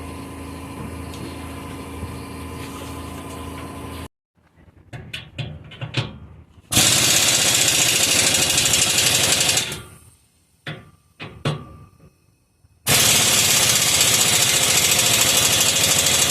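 Impact wrench running down exhaust clamp nuts in two steady bursts of about three seconds each, with clicks of handling between them. For the first four seconds a steady hum runs underneath.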